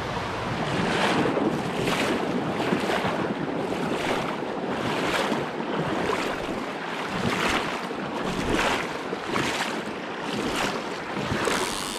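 Fast river current rushing, a steady wash of water noise that swells and eases about once a second.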